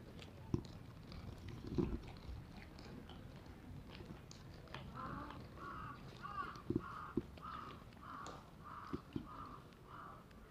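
Crow cawing, a run of about ten harsh caws at roughly two a second starting about halfway through. A few sharp low knocks are also heard.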